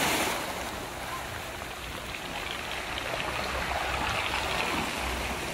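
Steady rush of small waves and water along the shore, with no clear engine tone standing out.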